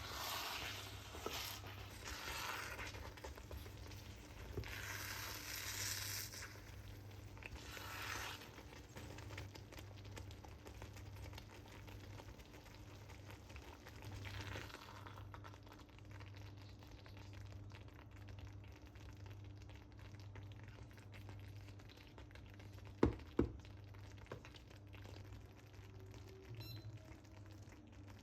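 Food sizzling in a pan, the hiss swelling and fading in several bursts, over a steady low hum. Two sharp knocks come close together a little before the end.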